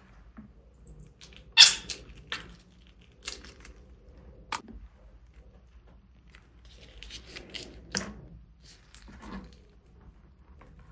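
Slime-making materials being handled: irregular crackles and crunches with softer squishy sounds between them, the loudest crackle a little under two seconds in.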